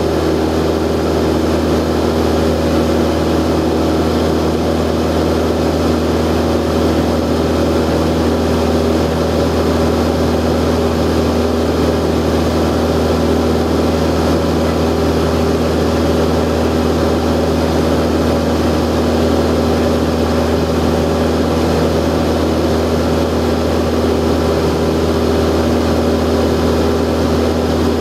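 Cessna 172's piston engine and propeller running steadily at a constant power setting, heard from inside the cabin as a loud, unchanging drone.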